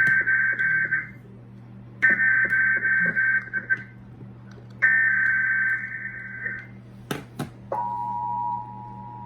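Emergency Alert System SAME header: three bursts of shrill two-pitch digital data tones, each under two seconds with about a second between, marking the start of a new alert broadcast. Two clicks follow, then a steady, lower alert attention tone begins near the end.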